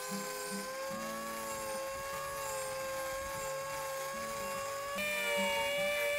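Electric power tool running at speed with a steady high whine. About five seconds in it gets louder and its tone shifts slightly higher.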